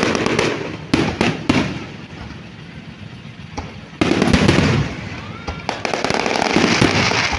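Aerial fireworks bursting: a few sharp bangs in the first second and a half, then from about four seconds in a dense, continuous crackle of many small bursts.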